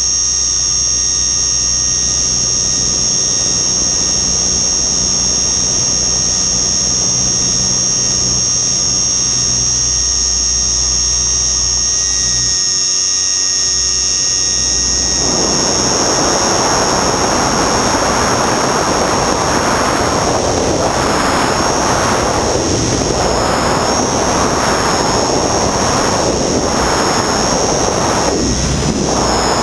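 RC helicopter in flight, heard from on board: a steady high motor whine over a low hum. About halfway through, a rush of wind noise on the microphone comes in and keeps pulsing over it.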